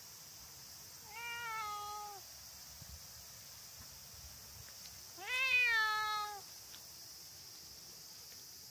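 Domestic cat meowing twice, each meow about a second long, the second louder than the first.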